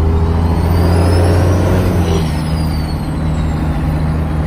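12-valve Cummins diesel pulling under load, heard from inside the truck's cab, with the whistle of its BorgWarner SXE364 turbo with a T51R-mod compressor cover rising for about two seconds and then falling away.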